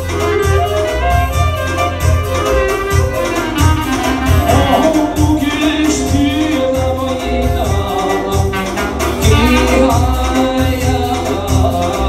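Live Albanian folk-pop medley: an electronic keyboard plays the melody over a steady beat, and a man starts singing through a microphone about four seconds in.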